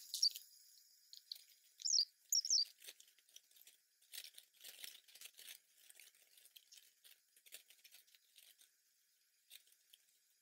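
Metal necklace chains and beads clinking and rustling softly as tangled necklaces are pulled apart by hand, with a few brighter metallic clinks about two seconds in.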